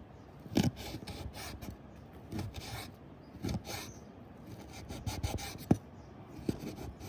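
Large kitchen knife chopping cubes of raw animal fat on a wooden cutting board: irregular knocks of the blade striking the board.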